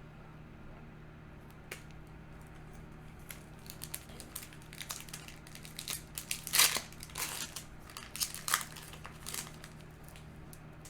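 Foil Yu-Gi-Oh! booster pack wrapper crinkling and crackling in the hands as the next pack is opened: a busy run of short, sharp crackles, loudest about two-thirds of the way through.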